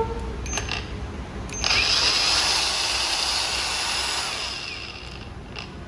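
A cordless power tool's electric motor clicks on briefly, then at about a second and a half spins up and runs steadily with a high whine. Near the end it winds down with falling pitch, followed by a click.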